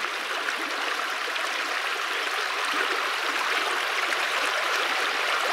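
Shallow trout stream rushing over rocks in a riffle: a steady hiss of running water.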